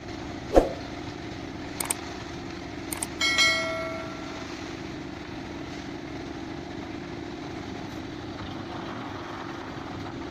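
Construction machinery engine running steadily, with a sharp loud knock about half a second in and a metal clang a few seconds later that rings on for about a second.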